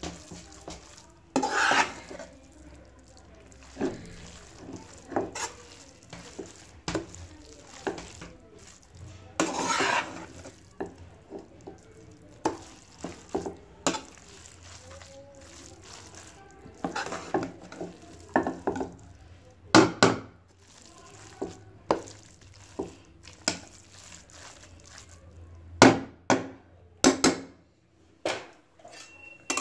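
A spatula stirring and tossing spaghetti and vegetables in a nonstick wok: irregular scrapes and knocks of the spatula against the pan, a few of them much louder strikes.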